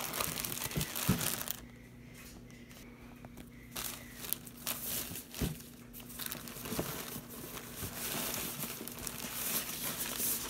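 Plastic packaging bags crinkling and rustling as hands open them and lift them out of a cardboard box, with a quieter pause about two seconds in.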